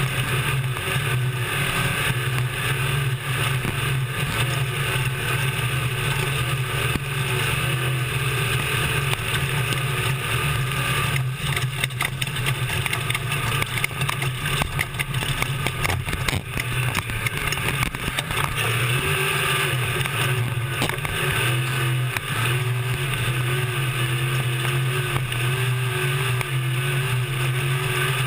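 Desert race truck's engine running hard and steadily from inside the cab, with road and wind noise. A run of sharp knocks and rattles from rough ground comes through for several seconds mid-way, and the engine note wavers up and down near the end.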